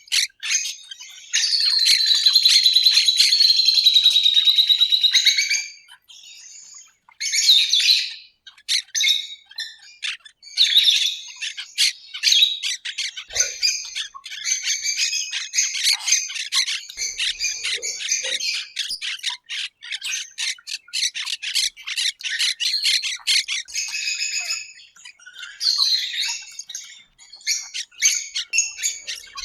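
Many birds calling together, rapid chirps and squawks with hardly a break, loudest and most continuous for a few seconds near the start.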